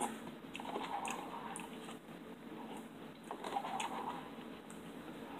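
Faint chewing of a mouthful of instant noodles, with a few small, light clicks scattered through.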